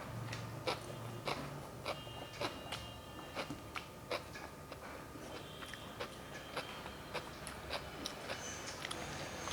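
Close-up mouth sounds of a person eating rice and curry: chewing with irregular wet smacks and clicks a few times a second.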